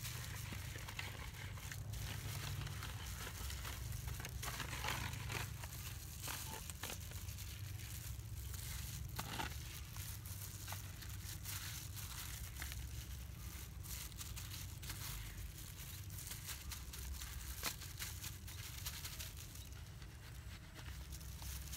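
Plastic food-handling glove and aluminium foil tray crinkling and rustling as a gloved hand rubs marinade into raw pig legs, with scattered small clicks over a steady low hum.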